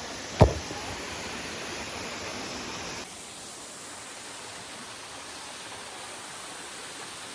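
Steady rushing of a waterfall, with one sharp knock about half a second in. At about three seconds the rushing abruptly drops a little and changes character.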